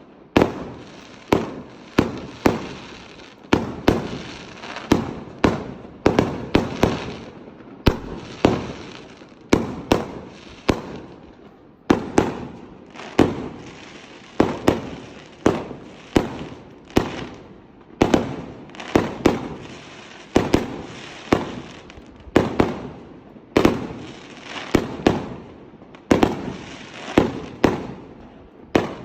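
Fireworks display: aerial shells bursting one after another, about one or two sharp bangs a second, with crackling trailing off after each burst.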